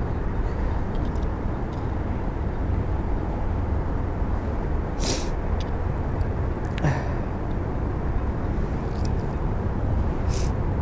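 Wind buffeting the microphone: a steady low rumble. Three short rustles come through it, about halfway through, a couple of seconds later, and near the end.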